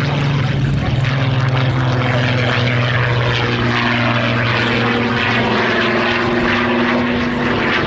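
Spitfire Mk XIV's Rolls-Royce Griffon V12 engine and propeller running loud and steady during a banking display pass overhead, with the engine note drifting slightly in pitch as it turns.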